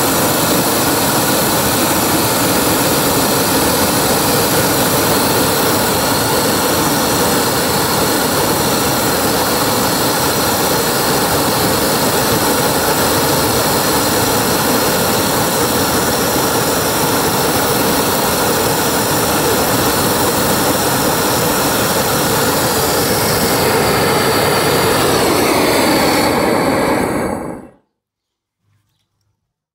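A 500,000 BTU gas torch blasting at full output, a loud, steady rush as its flame melts a Zamak-3 zinc alloy padlock. Over the last few seconds a tone in the rush slides downward, then the sound cuts off abruptly into silence.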